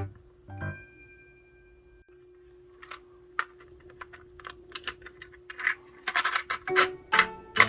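Handling noise of a small plastic cassette player: a run of sharp clicks and scratches that starts about three seconds in and thickens near the end, over a faint steady tone.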